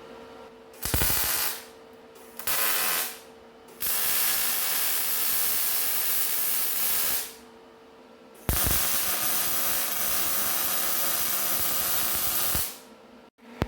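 Welding on steel in four bursts: two short tacks, then two longer runs of about three and four seconds, each with a steady hiss, over a faint steady hum.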